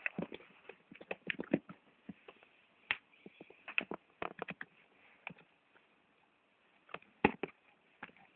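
Irregular light taps, scratches and knocks, like a cat shifting about in a cardboard box, with a louder knock about seven seconds in.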